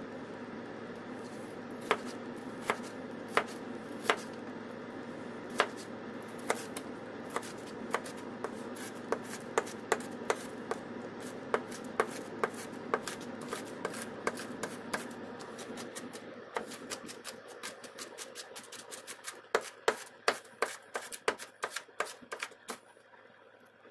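Misen chef's knife chopping a red bell pepper on a plastic cutting board: sharp knocks of the blade on the board, spaced out at first and coming faster and closer together near the end. A steady background noise under it fades out about two-thirds of the way through.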